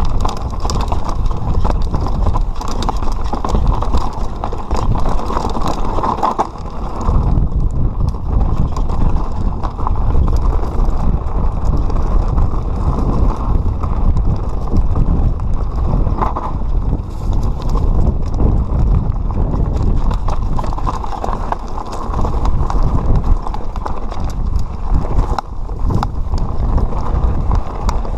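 Enduro mountain bike descending rocky singletrack: continuous rattling and clattering of the bike over rocks and roots, with wind rumbling on the microphone.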